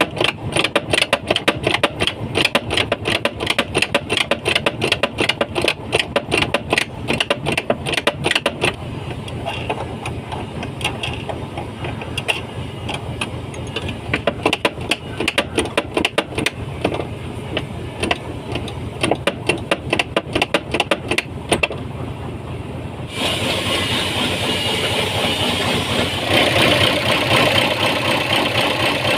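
Hino dump truck's diesel engine idling with a dense, rapid clatter, running to build up air pressure for the clutch booster. About 23 s in it changes to a louder, hissier running sound.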